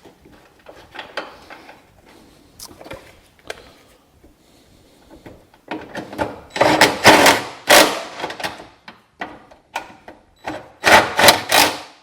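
Electric impact wrench running down the two small nuts that hold a hood ajar switch. Faint clicks of handling come first, then two loud bursts from the impact wrench, each about one and a half to two seconds long: one about halfway through and one near the end.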